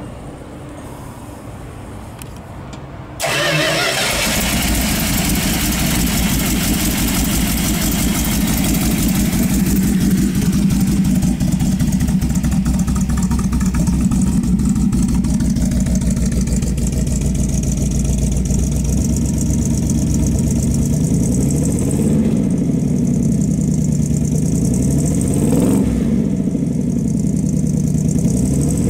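The 1937 GMC pickup's 318 cubic-inch V8 cranks and catches about three seconds in, then idles steadily. Near the end it is revved a few times, each rev rising and falling in pitch.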